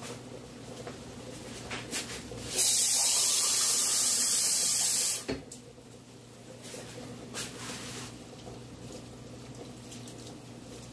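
Kitchen tap running in a steady hiss for about two and a half seconds, filling a cup with water for dough, then shut off suddenly; a few light knocks come before and after it.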